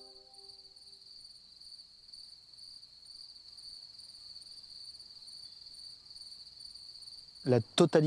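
Crickets trilling: one steady, unbroken high-pitched trill.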